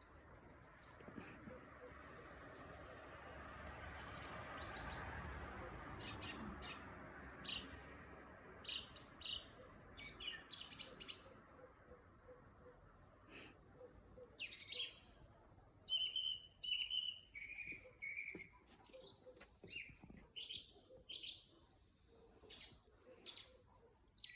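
A songbird singing a varied song of short, high whistled and chirping phrases, one after another with short pauses. A low rushing noise swells and fades during the first several seconds.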